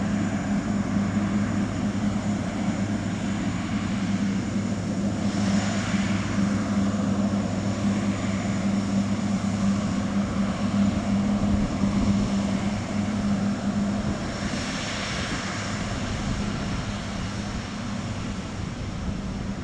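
General Electric GE90 turbofan engines of a Boeing 777-200ER running, a steady low drone with two swells of rushing hiss, about 5 and 15 seconds in; the drone eases slightly in the last few seconds.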